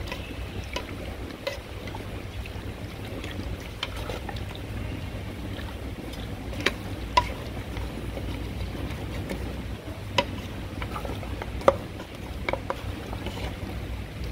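A wooden spatula stirring and turning pork belly pieces in an aluminium pot, with a few sharp knocks of the spatula against the pot, over a steady low rumble.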